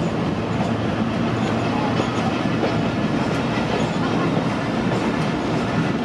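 Passenger coaches of an express train rolling slowly past: a steady rumble of wheels on rail with scattered clicks as the wheels cross the rail joints.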